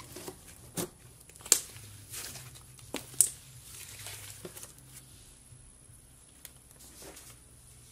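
Hands kneading and stretching thick pink slime: soft squelching and rustling with a handful of sharp pops in the first half, quieter after.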